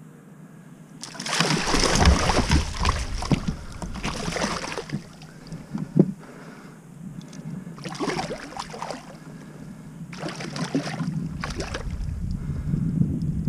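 A musky thrashing in a landing net beside a boat, splashing water in several bursts, the longest about a second in and lasting some four seconds, with a sharp knock about six seconds in.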